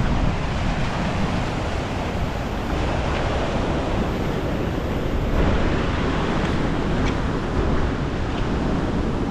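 Water rushing steadily through a narrow gap between earth banks as an overfull pond drains through it, with wind buffeting the microphone.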